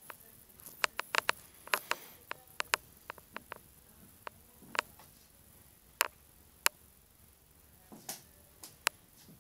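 Sharp clicks and light taps at irregular intervals from a cat playing with a homemade stick-and-string toy on a laminate floor, louder taps standing out a few times.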